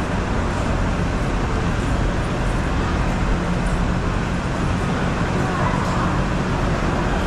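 Steady hubbub of a crowd of visitors in a busy temple, mixed with a constant low rumble like distant traffic.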